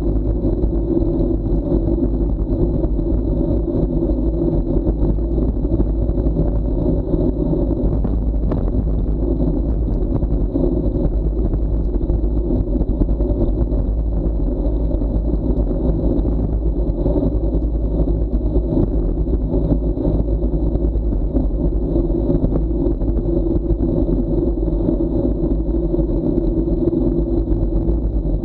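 Wind buffeting an action camera's microphone on a bicycle descending at about 40–45 km/h, a steady, loud low rumble.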